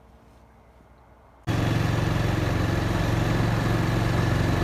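Quiet for about a second and a half, then a motorcycle engine cuts in abruptly and runs steadily while riding, a low engine note with a hiss of wind and road noise over it.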